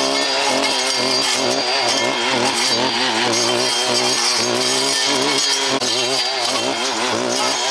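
Petrol strimmer running as it cuts thick bramble stems, its engine pitch wavering up and down under the changing load.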